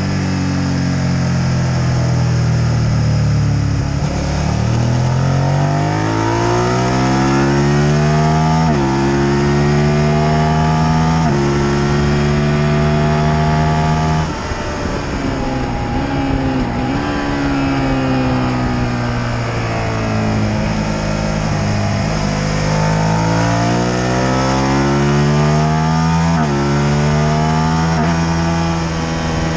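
Motorcycle engine ridden hard, its note climbing through the gears with quick upshifts about nine and eleven seconds in. The note falls away around halfway with a brief blip as the bike slows, then climbs again to another upshift near the end. Wind rush runs under it throughout.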